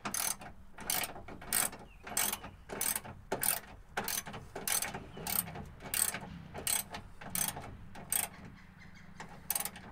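Hand ratchet wrench tightening a bolt: a rapid run of pawl clicks on each return swing, repeated about every two-thirds of a second, with a short pause before a last stroke near the end.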